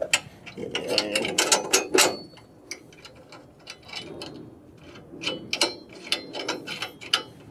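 Hand ratchet wrench clicking in several short runs of quick strokes, tightening the bolts on a steel frame horn.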